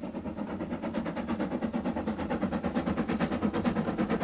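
A railway locomotive running with a rapid, even beat.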